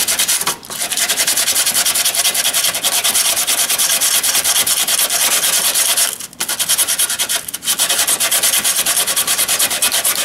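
Sandpaper rubbed by hand in rapid back-and-forth strokes on the painted metal of a Ford F-Series truck's front end, taking the paint down to bare metal for a clean ground connection. The strokes break off briefly about half a second in, and twice more around six and seven and a half seconds.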